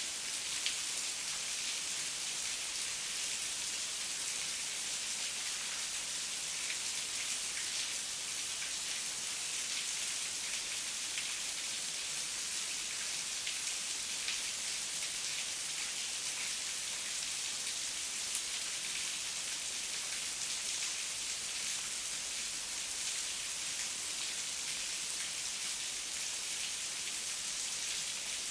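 Heavy rain falling steadily in a forest, a dense even hiss with many small drop ticks.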